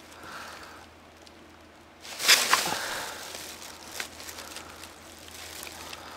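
Handling noise: a sudden loud rustling scrape about two seconds in that fades over about a second, then a few light clicks as the skull and camera are moved about.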